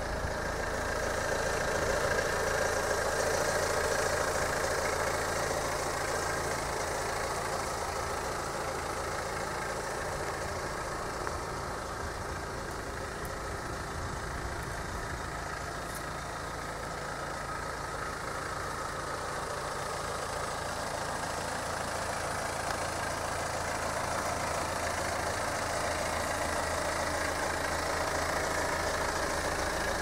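BMW 120d's four-cylinder turbodiesel idling steadily.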